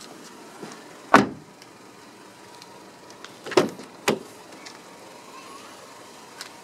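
A car door shutting with a solid slam about a second in, then two lighter door clunks about half a second apart.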